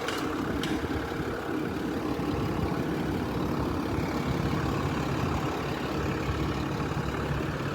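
Hotshot truck's engine idling steadily with a low, even hum.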